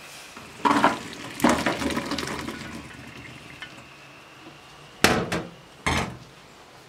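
Stainless steel pot and colander clanking in a sink as the hot water and blanched almonds are drained off, with a rush of pouring water starting about a second and a half in. Two more sharp clanks come near the end.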